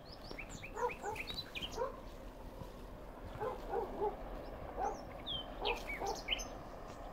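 Wild birds singing and calling: quick high chirps and short downward whistles, mixed with short lower calls that repeat in small groups of two or three.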